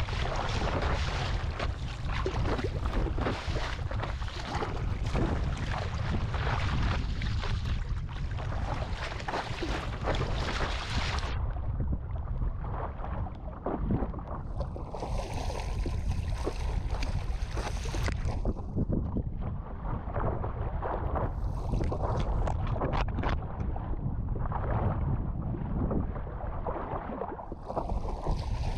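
Strong gusty wind rumbling on an action camera's microphone over the splash and wash of sea water around a stand-up paddle board. The high hiss thins out for stretches after about eleven seconds, while the low wind rumble goes on.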